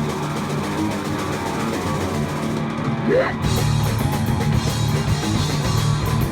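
Hardcore punk band playing live between sung lines: guitar and drum kit, loud and dense, with one rising glide about three seconds in.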